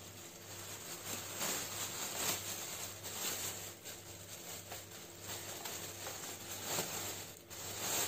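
Clear plastic bag crinkling and rustling in irregular bursts as a fan's motor housing is worked out of it.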